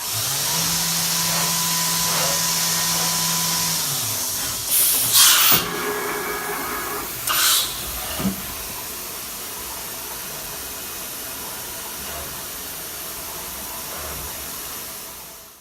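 Fanuc Robodrill vertical machining center running with a steady hiss. A steady hum comes in at the start and stops after about four seconds, short loud hisses come around five and seven seconds in, and then a quieter steady hiss continues until the sound fades out.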